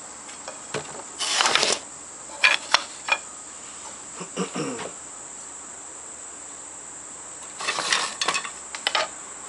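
Crickets trilling steadily at a high pitch, with several short bursts of clattering and knocking from hand-drill fire-making gear being handled.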